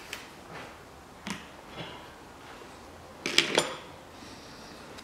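A few light metallic clinks and knocks of tools and small engine parts being handled and set down, with the loudest cluster a little after three seconds in.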